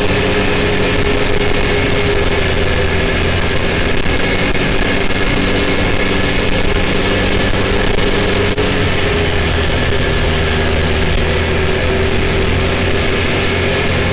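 Can-Am Maverick X3 side-by-side's three-cylinder turbo engine running at a steady highway cruise, a constant drone mixed with wind and tyre noise on pavement. A single brief click about eight and a half seconds in.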